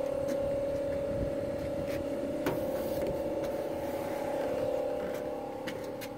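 A steady mechanical hum over a low rumble, with a few faint clicks, easing off slightly near the end.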